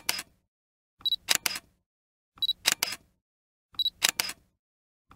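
Canon EOS 7D digital SLR taking single shots: each time a short high autofocus-confirmation beep, followed by the quick double clack of the mirror and shutter. This repeats evenly about every second and a half, four times.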